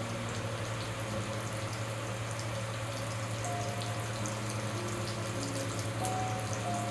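Soft background music of long held notes that change every second or so, over a steady hiss with faint crackling and a constant low hum.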